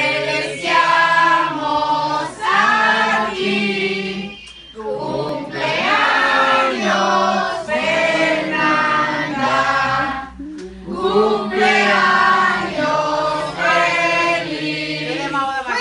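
A group of people, women's and men's voices together, singing a birthday song to the birthday child. It comes in three long phrases with short breaks between them.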